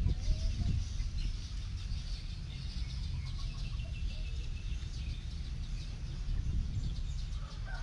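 A hen clucking faintly now and then over a steady low rumble, with a longer drawn-out chicken call beginning near the end.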